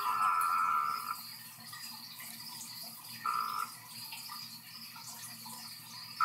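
Male Amazon milk frog giving its advertisement call to a female. It calls three times: a rough croak about a second long at the start, a shorter one about three seconds in, and another just beginning at the end.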